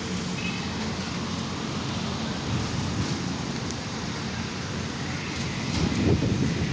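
Steady low rumble of road traffic mixed with wind on the microphone, swelling louder about six seconds in.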